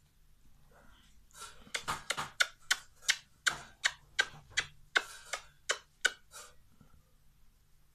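A person's lips smacking in a rapid string of kisses on a small dog: about twenty short sharp smacks, roughly three a second, starting about a second and a half in and stopping after about five seconds.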